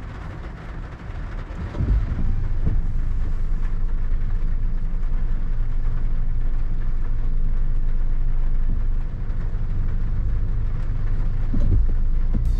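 Steady low drone of a car's engine and road noise heard inside the cabin while driving, stepping up in level about two seconds in and then holding even.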